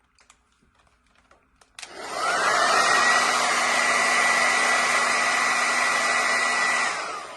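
Conventional hand-held hair dryer switched on at maximum heat about two seconds in: a click, then the motor's whine rises quickly and settles into a loud, steady rush of air with a high whine. Near the end it is switched off and the whine falls away.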